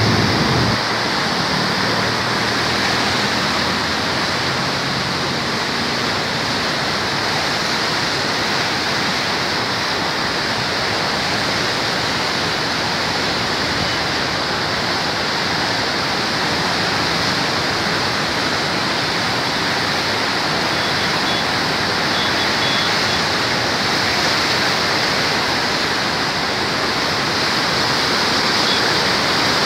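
Saptakoshi river in flood rushing through the Koshi Barrage: a steady, unbroken rush of churning, turbulent floodwater.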